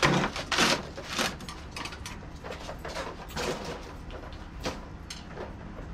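Metal scraping and clanking as a tour-pack luggage rack is worked onto a Harley-Davidson's rear fender mounts by hand, where it is catching on the fender. Two loud scrapes come in the first second, then shorter scrapes and clicks every second or so.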